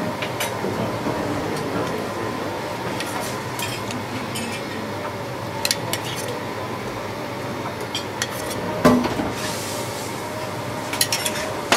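A metal spoon scraping purée out of a stainless steel saucepan and clinking against it and small porcelain bowls: scattered light clinks and scrapes over a steady background hum. A louder knock comes about nine seconds in, and a quick run of clinks near the end.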